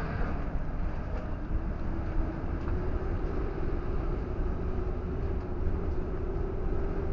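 Vehicle driving on the highway, heard from inside the cab: a steady low rumble of engine and tyres on the road. A hum in it rises slightly in pitch from about a second and a half in and eases down near the end.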